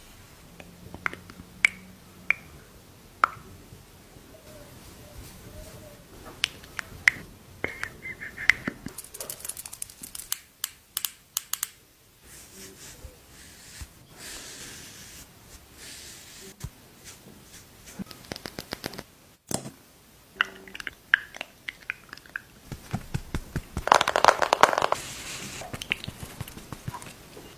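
Makeup products handled close to the microphone: scattered sharp clicks and taps of cases and lids, with a few short bursts of rustling and crinkling.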